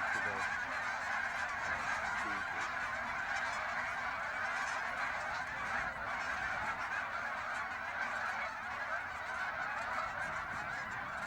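A large flock of geese honking together, a dense, continuous din of overlapping calls.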